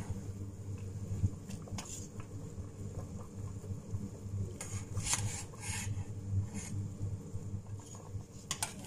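A metal spoon scraping and clinking against the side of a stainless steel pot of boiling soup while stirring, in a few short scrapes about two, five and six seconds in, over a steady low hum.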